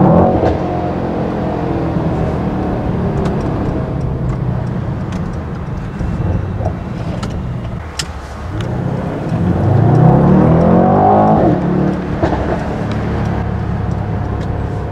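Mercedes-AMG E63 S 4MATIC+'s twin-turbo V8 heard from inside the cabin in race mode, pulling steadily. Then the revs drop briefly about eight seconds in, with a few sharp cracks, and rise strongly under acceleration before settling again.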